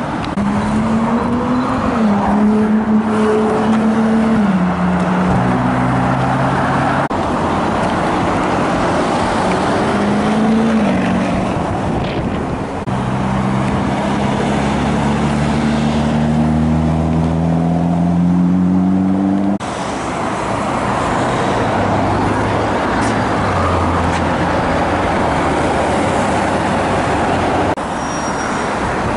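Supercar engines in street traffic, across several short clips. In one, an engine note climbs steadily for several seconds as a car accelerates.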